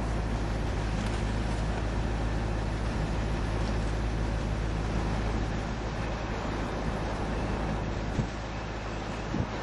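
Steady low road and engine noise of a Vauxhall Monaro V8 heard inside the car's cabin while driving downhill, easing slightly about halfway through.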